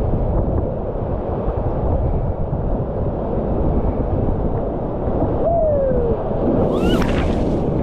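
Steady rush of river water with wind buffeting the microphone. A single falling cry is heard a little past halfway, and a short hiss comes near the end.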